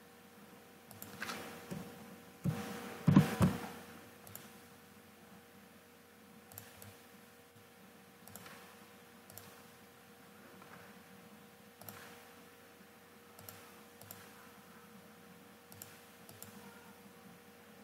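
Computer mouse clicks and keyboard taps, with a quick cluster of louder knocks about three seconds in and then single clicks every second or two, over a faint steady hum.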